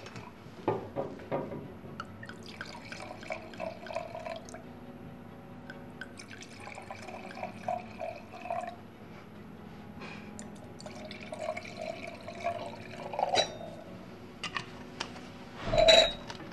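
Wine poured from a bottle into wine glasses, three pours of about two seconds each, one after another. A few small clicks come early on, and a loud clunk follows near the end.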